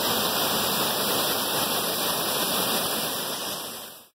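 Flood-swollen overflow waterfall, about 16 feet tall, roaring steadily with runoff after 3–4 inches of rain. The roar fades out and stops abruptly near the end.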